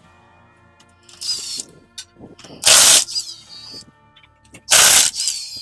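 Cordless impact wrench hammering on a car's wheel nuts in three short bursts about two seconds apart, the later two the loudest.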